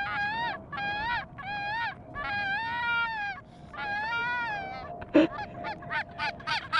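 Goose honks: about six drawn-out honks, each rising and falling in pitch, then a quicker run of short honks and clucks near the end.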